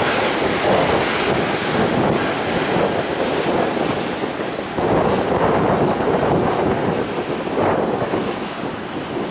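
Airbus A330-200 jet engines running as the airliner rolls out on the runway after touchdown: a loud, steady rushing noise that swells and eases slowly.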